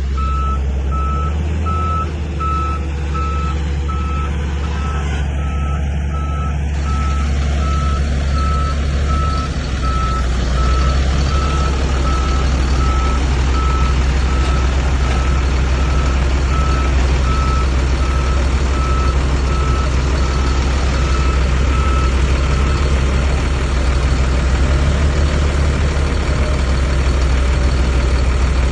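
A heavy machine's reversing alarm beeping steadily at one pitch over the low rumble of a big diesel engine. The beeping stops about two-thirds of the way through while the engine keeps running, somewhat louder from about a third of the way in.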